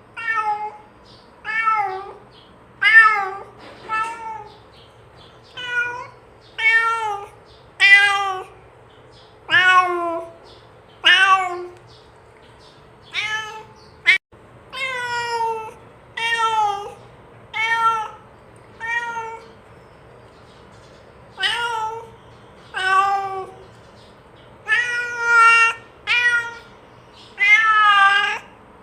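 Domestic cat meowing over and over, about one short call a second, each call rising then falling in pitch, with a few louder, longer meows near the end; a calling meow, the kind a cat uses to summon another cat.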